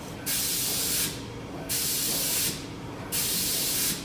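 Pneumatic packaging machine hissing out compressed air in regular bursts, three in a row about a second and a half apart, each lasting under a second and starting and stopping sharply, over a steady machine hum.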